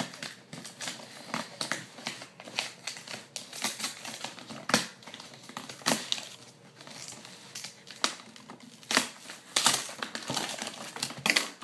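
A cardboard shipping box being opened and handled by hand: irregular crinkling and crackling, with scattered sharp rips and knocks.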